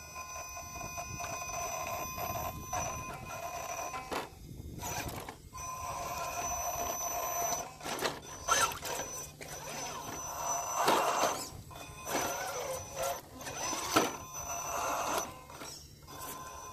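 Scale RC rock crawler's electric motor and speed controller whining steadily as it crawls slowly over rock, with a few sharp knocks of the tyres and chassis on the stone, the loudest near the end.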